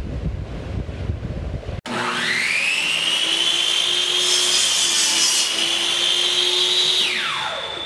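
Blizzard wind gusting on the microphone, then after a sudden cut a high machine whine that spins up within half a second, holds steady for about five seconds, and winds down near the end.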